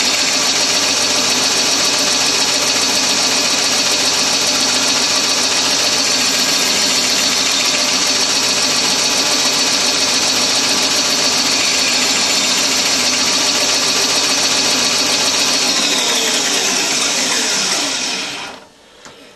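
Bandsaw running steadily while wood segments are cut on a mitre sled. About three-quarters of the way through it is switched off, and its motor winds down with a falling whine until it goes quiet.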